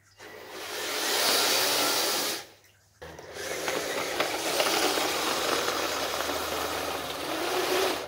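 Electric drive of a radio-controlled snowcat whirring as it runs through snow, in two stretches: the first swells up and stops after a couple of seconds, the second starts abruptly after a short pause.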